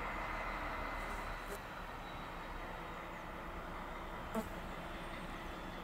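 T448p diesel shunting locomotive running at low speed as it hauls freight wagons slowly over the points, a steady engine and rolling noise. A single brief sharp sound stands out a little over four seconds in.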